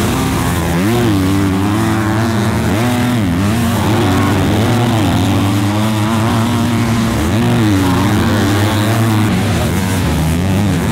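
250cc four-stroke motocross bikes racing, their engines revving up and dropping back over and over as the riders work the throttle through the track.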